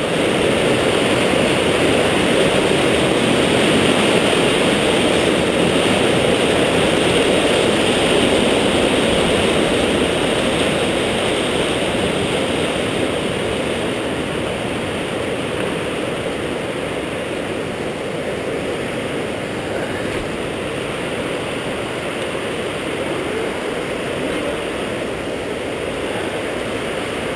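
Steady rush of a waterfall, loudest for the first dozen seconds, then a little quieter.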